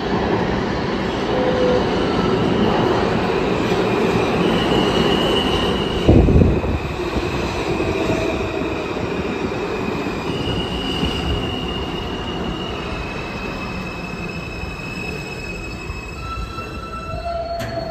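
R160 subway train pulling into an underground station and slowing to a stop, running with a steady rumble while its wheels squeal in several high tones one after another. There is a loud thump about six seconds in.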